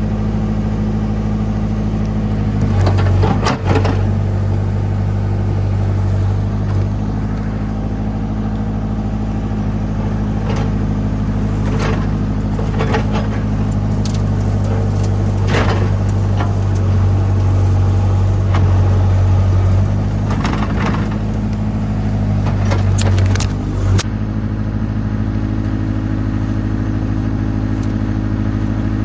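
Excavator's diesel engine running steadily, its note swelling and easing as it works, with a series of sharp knocks and cracks through it. The engine's pitch steps up about 24 seconds in.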